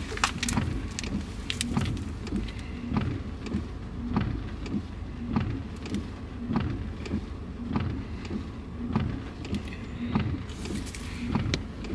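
Car cabin noise: a steady low rumble from the car, with scattered light clicks and rustles of a phone and clothing being handled.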